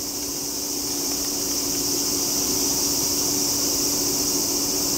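Steady high buzzing chorus of insects, with a steady low hum beneath it, growing slowly louder.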